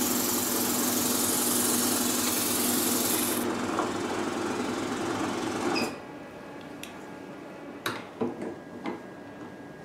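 Oxygen spray gun of a hydrafacial machine hissing steadily as it sprays atomised water, with a steady hum underneath. The hiss thins about three and a half seconds in and cuts off about six seconds in, leaving a few light clicks and knocks.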